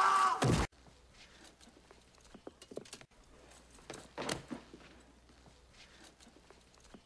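A man screaming as he falls from a high window, the scream falling in pitch and cut off abruptly less than a second in. After it, near quiet with faint scattered clicks and shuffles.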